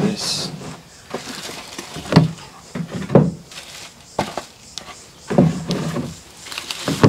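Cardboard box and a plastic-bagged fishfinder display being handled: a series of light knocks and rustles, roughly one a second.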